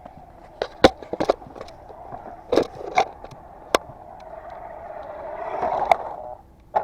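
Radio-controlled car driving over rough ground: a steady motor whine with tyre noise, broken by several sharp knocks and bumps. The whine grows louder, then cuts off suddenly near the end.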